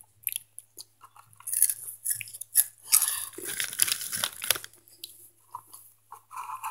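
Hot Cheetos dipped in hot sauce being chewed: a run of irregular crisp crunches, thickest in the middle.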